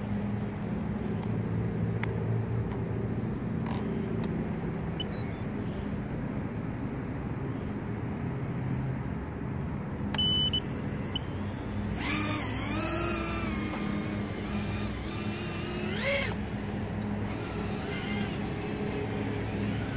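Small FPV quadcopter's brushless motors running with a steady low hum. A whining tone rises and falls around twelve seconds in and again near sixteen seconds as the throttle changes.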